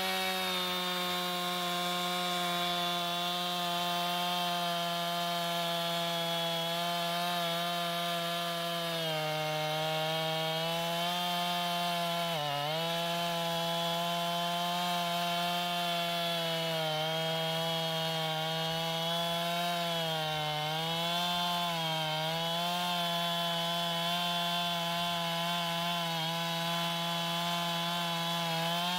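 Husqvarna 445 two-stroke chainsaw running at full throttle while its chain cuts through a log. The engine note holds steady but dips briefly several times as the chain bogs under load, most deeply about twelve seconds in.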